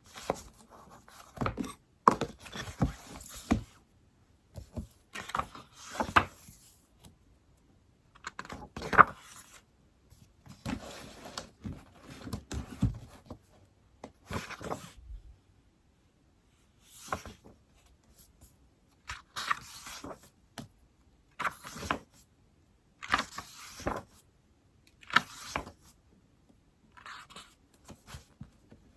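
Stylus writing on an iPad screen: scratchy strokes in short bursts with sharp taps, broken by silent pauses.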